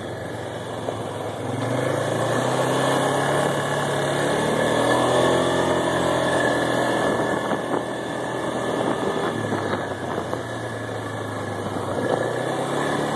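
ATV engine running while riding on a dirt track, its pitch rising about a second and a half in and dipping briefly later on, over a steady rushing noise.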